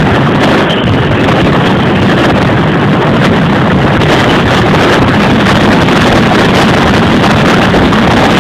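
Mascletà firecrackers: a rapid, unbroken barrage of bangs so dense that they run together into one continuous, very loud din, with white crackling bursts going off overhead.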